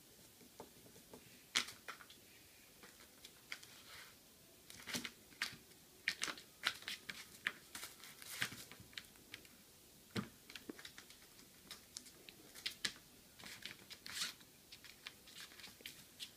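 A kitten batting a cork around a cluttered tabletop: irregular light taps and knocks of the cork and paws, mixed with brief rustles of paper and plastic.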